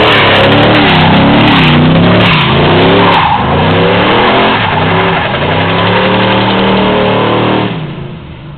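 Chevrolet Monte Carlo's engine revving up and down over and over while its rear tyres spin and screech in a smoky burnout. Near the end the sound quickly falls away as the car pulls off.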